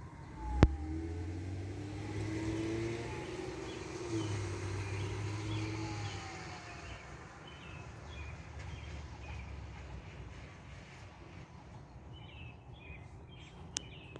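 Fire engine passing with its siren wailing faintly and its engine running, dying away after about six seconds; a sharp click about half a second in, and birds chirping near the end.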